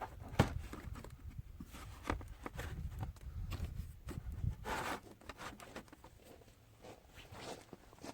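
Scattered clicks, taps and rubbing of things being handled, with a low rumble through the first half and a brief rustle near the middle.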